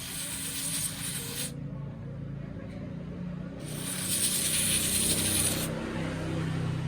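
Two bursts of pressurised spray hissing, each about two seconds long, the first stopping about a second and a half in and the second starting just past the middle, over a steady low hum.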